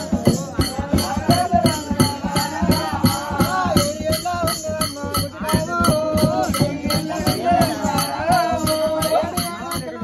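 Telugu folk story-singing with a fast, steady rattling beat of jingles and drum under a wavering lead voice.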